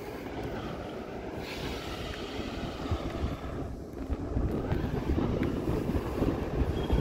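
A KTM-1 heritage tram car and its KTP-1 trailer rolling along street rails, a steady rumble. Wind buffets the microphone on the moving bicycle, and the noise gets louder about halfway through.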